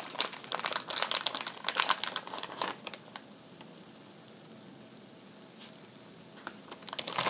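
Plastic bag of shredded cheese crinkling as it is handled and shaken for the first three seconds or so, then a quieter stretch with a faint steady hiss, and a little more crinkling near the end.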